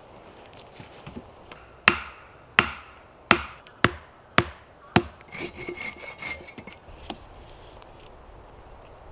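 An axe striking the top of a wooden stake six times, about one blow every 0.6 seconds, driving the stake into the ground. Then a few seconds of rustling and a thin squeak as cord is wrapped around the stake and the logs.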